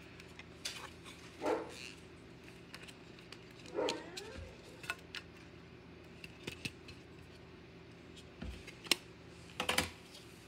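Trading cards and clear plastic card holders being handled on a table: scattered light clicks, taps and rustles of plastic and card.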